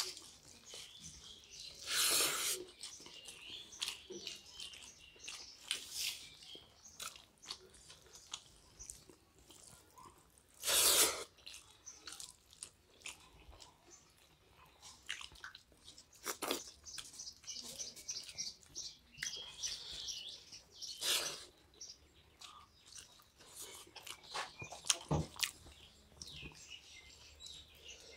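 Two people eating rice and fish head curry by hand: chewing, soft crunches and fingers mixing food on steel plates, with a few louder short noises about two, eleven and twenty-one seconds in.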